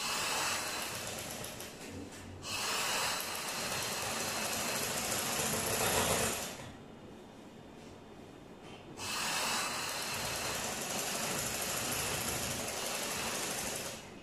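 Motor-driven domestic sewing machine stitching a seam, running in three stretches: a short run, a longer one, then after a pause of about two seconds another long run near the end.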